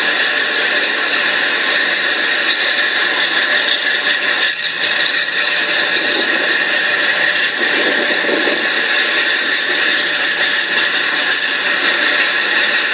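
Freight train of covered trash cars rolling past: steady noise of steel wheels on the rails, with a squeal and many small rapid clicks.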